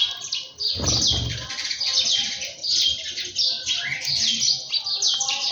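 A flock of small birds chirping continuously, many quick overlapping chirps, with a brief low thud or rumble about a second in.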